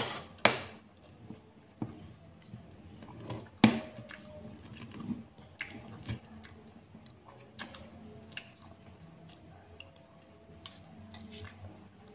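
Spoon and fork clinking and scraping against a plate while cutting grilled meat, with chewing between; sharp clinks come every second or so, the loudest about half a second in and just before four seconds.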